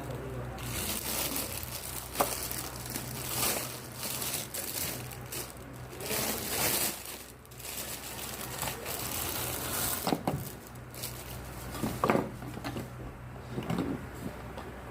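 Packaging crinkling and rustling in irregular bursts as a rotating flat mop set is unboxed, with a few sharp clicks and knocks from the parts being handled.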